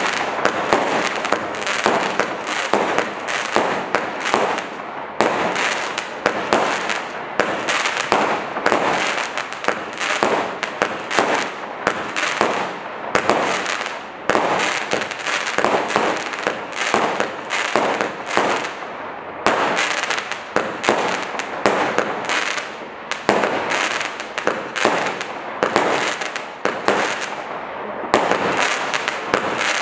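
Black Cat Kaboom 49-shot Roman candle cake firing: a continuous run of sharp reports and crackling breaks with no pause.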